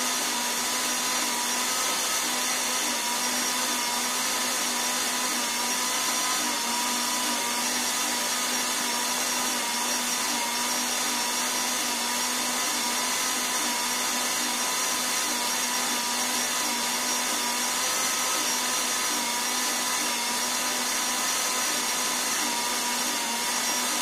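Bosch Universal stand mixer running steadily with a constant whine, its dough hook kneading a ball of soft pretzel dough.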